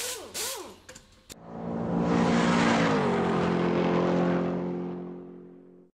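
Intro sound effect: a couple of whooshes and a sharp click, then a car engine revving loudly, its pitch dropping a little, and fading out.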